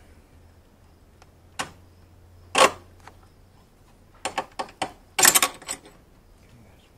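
Sharp metallic clicks and clacks of a hex key and loose bolt hardware being worked on a motorcycle's rear rack: a single click, a louder clack about a second later, then a quick run of clicks and a short rattling clatter near the end.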